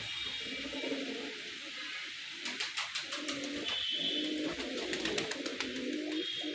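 Domestic pigeons cooing, low rolling coos repeating throughout. A run of sharp clicks comes in the middle, and a brief high squeak about four seconds in.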